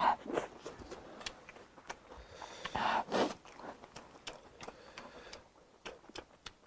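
A person eating rice close to the microphone: chewing with many small wet mouth clicks and smacks, and breathy puffs of air blown out through pursed lips right at the start and again about three seconds in.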